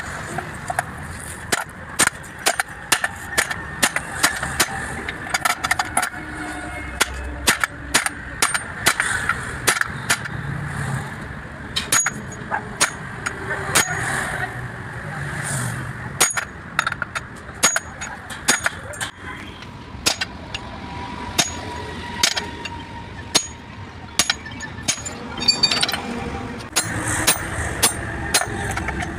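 Hand hammer striking the steel yoke of a truck propeller shaft's universal joint to knock the joint cross and its bearing caps loose: many sharp metal-on-metal blows at an uneven pace, some ringing briefly.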